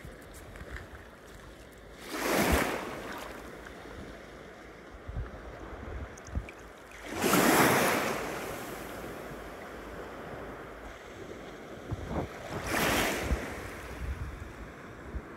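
Small sea waves washing in over shingle and sand at the water's edge, three swishes about five seconds apart.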